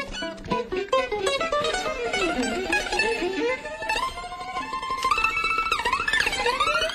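Acoustic string band playing live, an instrumental passage of plucked mandolin and guitar, with notes that slide down and swoop back up in pitch, twice over.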